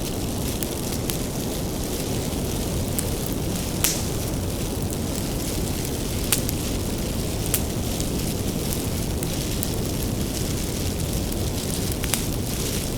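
Bonfire of firewood burning: a steady low rumble of flames with scattered sharp crackles and pops, the loudest about four seconds in.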